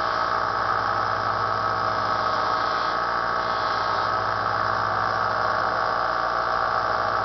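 Small electric bench belt sander, fitted with a muslin buffing wheel, running steadily at constant speed.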